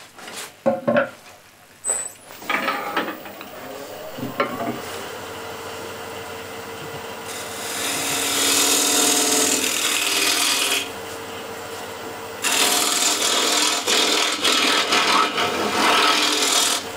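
A few sharp knocks, then a wood lathe running with a steady hum while a bowl gouge cuts the foot of the spinning wooden bowl. The cut is a loud hissing rush of shavings coming off in two passes, about three and four and a half seconds long, with a short pause between.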